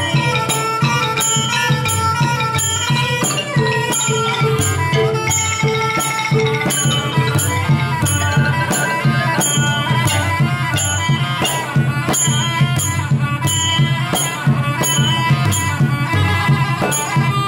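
A Khmer pinpeat ensemble plays live. Wooden roneat xylophones and the nasal sralai quadruple-reed oboe carry the melody over the sampho barrel drum and gong circle, with a steady, even beat throughout.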